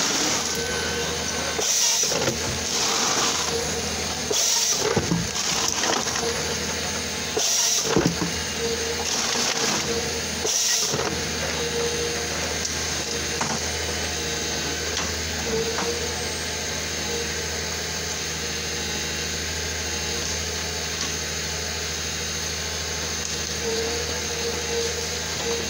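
Komatsu 901XC harvester's diesel engine and hydraulics running steadily, with a constant hydraulic whine. Over roughly the first ten seconds, several short, loud, noisy bursts come as the C93 harvester head grips and handles a stem and brush; after that the machine drones on evenly.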